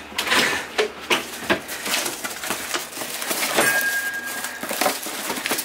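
Cardboard box flaps and plastic packaging rustling and crinkling as items are pulled out and handled, with short knocks of things being moved in plastic crates. A brief, thin, steady high tone sounds just past the middle.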